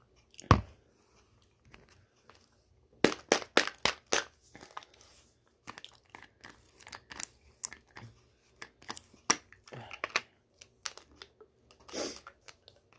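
A single knock about half a second in, then a plastic pill bottle being opened and handled: a run of sharp clicks and light rattles from the cap and the capsules inside.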